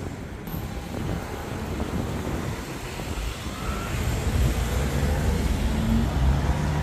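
Steady low rumble of road traffic, growing louder in the last few seconds.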